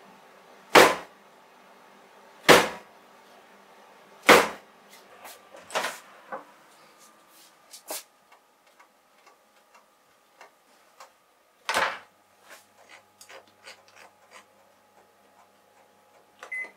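A cake tin of batter dropped onto the counter three times, about two seconds apart, to knock the air bubbles out before baking. Then a Bistro oven's door is opened and shut with a thud, its dial clicks as it is turned, and it gives a short beep near the end.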